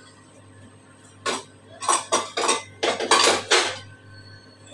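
Steel kitchen utensils, a spoon and small stainless steel bowls, clinking and scraping against each other in a quick run of about seven short clatters, starting a little over a second in.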